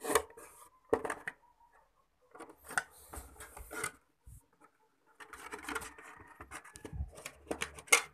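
Handling noise of an action camera and its packaging: sharp clicks and knocks with rubbing and scraping as the camera is handled in its box insert and lifted out, the handling getting busier in the second half.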